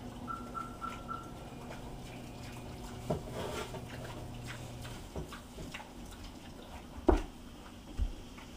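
A pig eating wet food from a bowl: scattered wet smacking and clicking of chewing, with two sharp knocks about seven and eight seconds in, the first the loudest.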